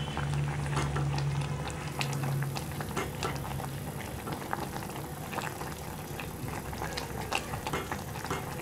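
Jowar and ragi flour over rice water boiling in a stainless steel pot, a steady bubbling with many small irregular pops, while the back of a wooden churner (mathu) breaks up the cooked flour. A low hum fades out about halfway.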